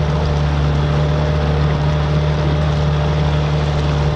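Outboard motor running steadily at cruising speed aboard a small boat under way, a constant low drone, over a steady hiss of wind and water.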